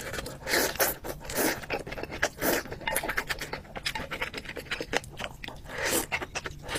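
Close-miked eating of spicy instant noodles: wet chewing clicks throughout, with several loud slurps of noodles, one near the end.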